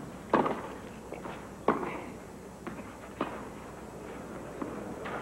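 Tennis rally on a clay court: a ball struck by rackets back and forth, three sharp hits about a second and a half apart in the first three seconds, then fainter knocks.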